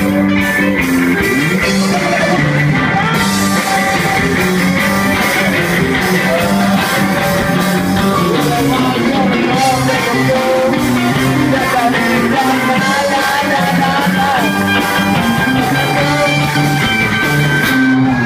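Live rock band playing loud: electric guitar and drums under a singer on a microphone, with the guitarist singing along.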